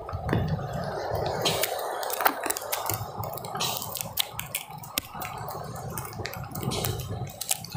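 Heavy rain on an open beach: a steady wash of rain and surf, with many scattered sharp taps of drops striking close to the microphone and low, irregular wind rumble.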